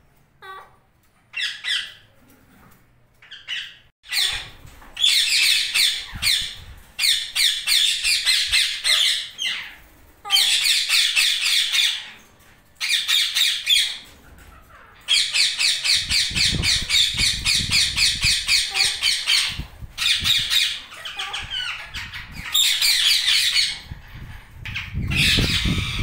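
Alexandrine and ring-necked parakeets squawking: loud, harsh calls in fast rattling runs of one to four seconds, repeated again and again. A low rumble runs under the calls in the second half.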